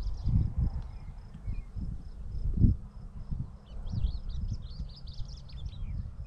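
Small birds singing a fast, warbling twitter over an open field, with a steady, evenly pulsed high chirping of insects behind it. Under them run irregular low rumbling bursts of wind on the microphone and the steps of someone walking through tall grass.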